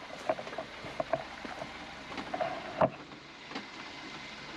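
Suzuki Jimny crawling slowly over rocks: stones clicking and cracking under the tyres, with a sharp knock just before three seconds in, over a low engine hum.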